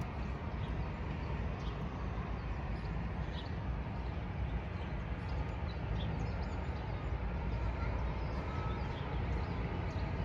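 Steady low outdoor rumble of background ambience, with faint short high chirps scattered through it.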